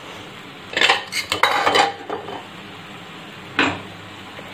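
A spoon clattering against dishes: a quick run of clinks and scrapes about a second in, then a single clink near the end.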